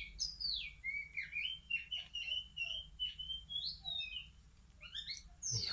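Three-week-old Oriental magpie-robin fledglings chirping: a run of short chirps falling in pitch, then a quicker series of brief chirps, a lull about four seconds in, and a rising chirp near the end.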